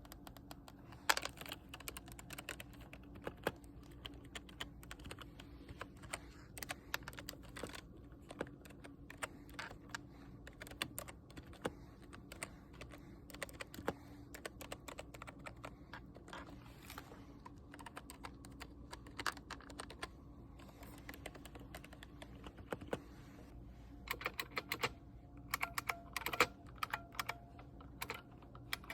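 Typing on a computer keyboard: irregular clacks of keys being pressed, coming in quicker flurries near the end.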